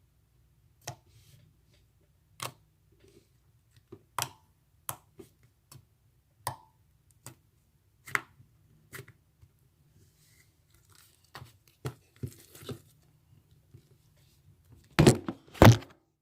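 Homemade glue-and-borax fluffy slime being squeezed and stretched by hand for ASMR, giving sharp sticky clicks and pops about once a second. Two louder, longer squelches come near the end.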